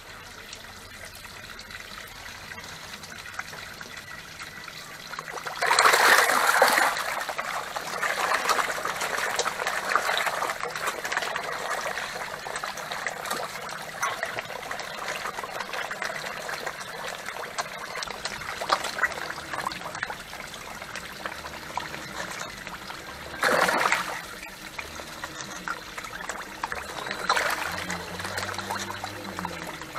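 Water trickling and splashing in a koi pond as a crowd of koi churn the surface, with loud splashes about six seconds in and again near twenty-four seconds.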